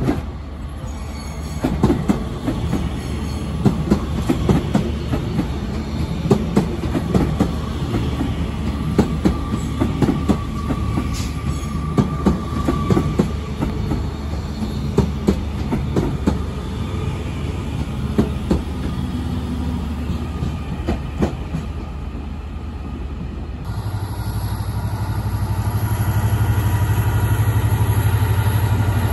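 Two coupled Northern class 331 electric multiple units passing a platform, their wheels clicking repeatedly over the rail joints. About three-quarters of the way in, a DB Cargo diesel locomotive takes over with a steady, low engine hum that slowly grows louder.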